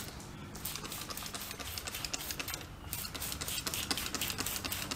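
Hand trigger spray bottle squirted over and over, a quick run of short hissing spurts at about four a second, wetting a truck tire's bead at the rim. A faint steady low hum lies underneath.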